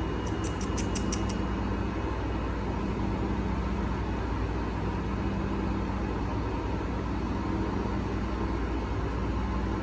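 Steady low machine hum with several constant low tones in an enclosed parking garage. A quick run of six or seven faint high ticks comes within the first second and a half.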